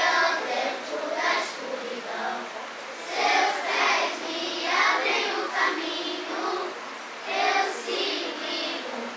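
A group of children singing together, in phrases a second or two long.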